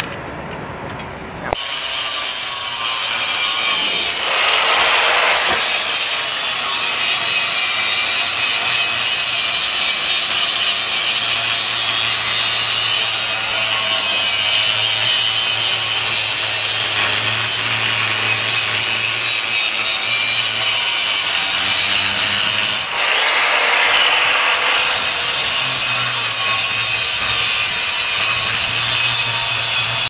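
Electric angle grinder cutting into a steel motorcycle exhaust pipe, a loud steady rasping grind that eases off and bites again twice.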